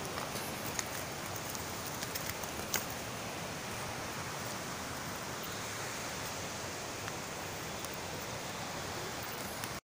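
Steady outdoor rushing hiss with a few faint clicks in the first few seconds, cutting off abruptly near the end.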